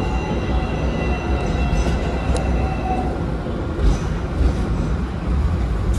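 Hong Kong double-decker electric tram running, heard on board: a steady low rumble with faint high steady tones above it. A single sharp click comes about two and a half seconds in.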